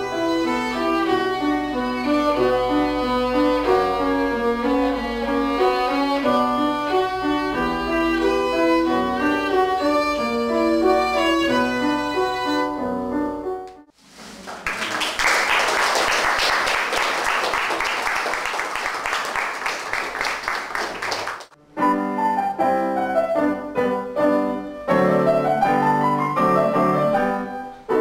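A violin plays a classical piece for about the first 13 seconds. After a short break, an audience applauds for about seven seconds. A grand piano piece then begins and carries on to the end.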